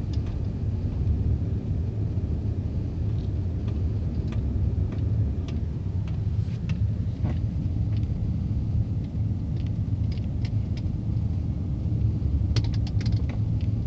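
Car driving slowly, heard from inside the cabin: a steady low rumble of engine and tyres, with a few light clicks near the end.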